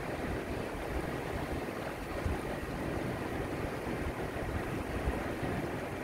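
Shallow sea water washing steadily over rocks and sand at the shoreline, an even rushing noise with a low rumble.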